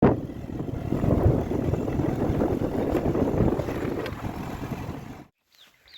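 Wind rumbling and buffeting on the microphone, a loud uneven low noise that cuts off abruptly about five seconds in.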